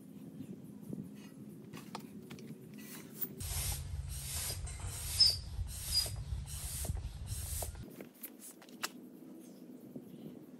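Hand air pump being worked to inflate the pool's ring, about six strokes in a row in the middle, each a rushing hiss of air. Softer rustling and handling of vinyl comes before and after.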